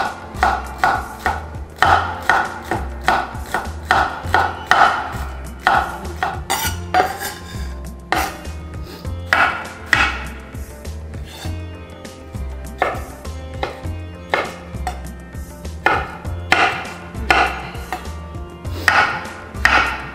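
Chef's knife chopping red onion on a wooden cutting board: repeated knife strikes, about two a second, in runs with short pauses, over soft background music.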